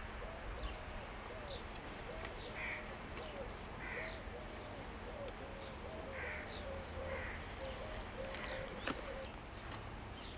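Birds calling: short caws repeated every second or so over a fainter, repeating lower call, with a low rumble underneath.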